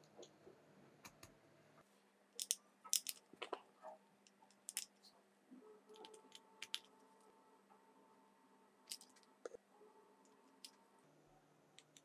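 Scattered short, sharp clicks and crackles, the loudest cluster about two and a half to four seconds in and a few more near nine seconds, over a faint steady hum.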